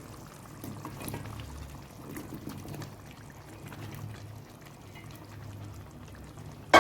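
Rinsed, sliced potatoes being tipped into a pot of tomato sauce: soft pouring and sloshing with small knocks. Just before the end comes a sudden loud metallic clang that keeps ringing.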